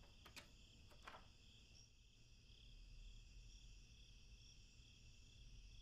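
Faint crickets chirping steadily, with a couple of soft clicks in the first second.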